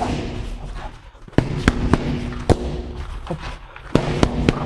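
Kicks and gloved punches smacking into a trainer's Thai pads: sharp slaps in short combinations, two in quick succession, then a single one, then a fast run of three near the end.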